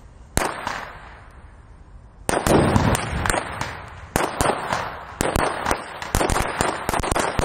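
Firecrackers going off on a paved street: one sharp bang, then from about two seconds in a rapid, irregular run of loud cracks with fizzing between them.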